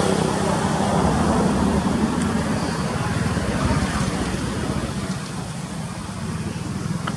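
Steady hum of a motor vehicle's engine running, with a rushing noise over it and a brief click near the end.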